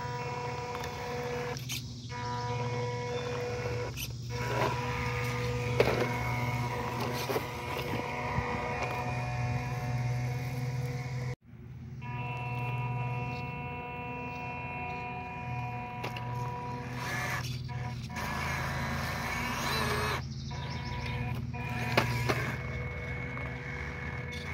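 Whine of an FMS Chevrolet K10 mini RC crawler's small electric motor and gearbox, coming and going with the throttle as it crawls over tree roots. Two sharp knocks stand out, a few seconds in and near the end.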